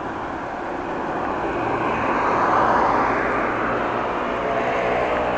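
A vehicle driving past on the road: tyre and engine noise swelling to a peak about halfway through and then fading away.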